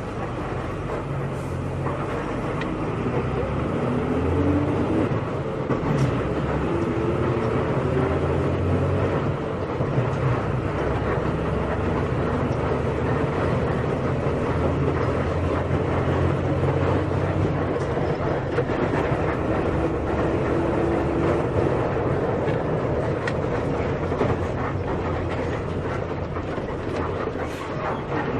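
Volkswagen Volksbus 17.230 EOD city bus under way, heard from on board: the diesel engine and drivetrain run loudly, with the engine note and a higher whine rising and falling as the bus picks up speed and changes pace.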